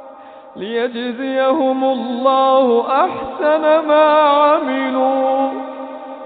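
A man's voice chanting Quran recitation in the drawn-out, melodic tajweed style, holding long vowels whose pitch winds up and down. It comes in about half a second in.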